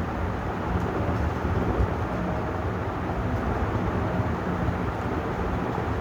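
56-inch Vision ceiling fan running steadily: a low rushing of moving air with a faint, even hum.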